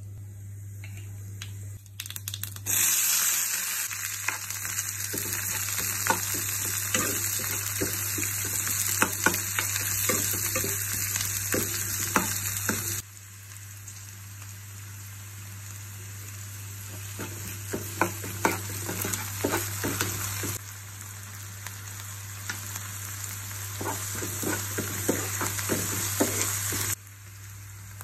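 Hot oil sizzling in a frying pan as cumin and mustard seeds, then chopped onions and green chillies, fry, with many sharp clicks and scrapes of stirring through the sizzle. The sizzle starts loud a few seconds in and drops abruptly to a quieter level several times. A steady low hum runs underneath.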